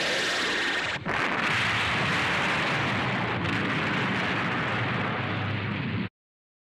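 A long explosion sound effect: a continuous noisy roar with a brief break about a second in, cut off abruptly about six seconds in.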